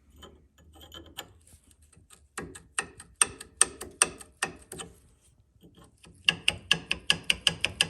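Hand tool working steel steering bellcrank hardware: sharp metallic clicks, a handful spaced apart about two and a half seconds in, then a quicker, even run of about five a second near the end.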